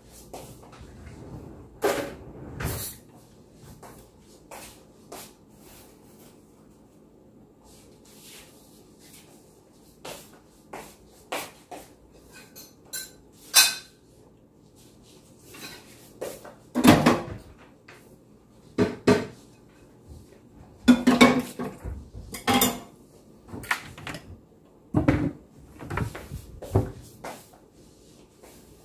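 Kitchen clatter: scattered knocks and clinks of cookware and utensils being handled, with clusters of louder knocks in the second half, over a faint low hum.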